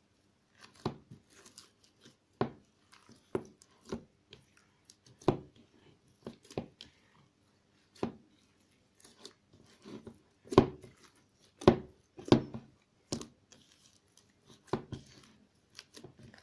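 Bead-filled slime being mixed and kneaded by hand: a string of irregular sharp pops and clicks, roughly one a second, as the slime is pressed and pulled and air pockets burst, with the loudest pair about ten and eleven seconds in.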